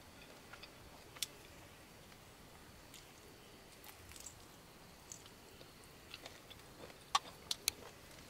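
Scattered small clicks and taps over faint background noise, with three louder sharp clicks close together about seven seconds in.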